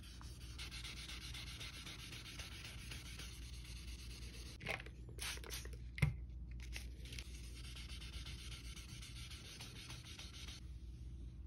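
Wet sanding of a clear-coated 3D-printed helmet by hand with 2000-grit sandpaper: a faint, steady rubbing hiss. About halfway it breaks for a few short squirts of a trigger spray bottle wetting the surface, then the sanding resumes.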